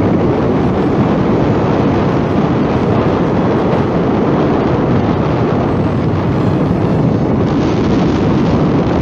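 Loud, steady wind rushing over the microphone of a moving vehicle, mixed with road and engine noise.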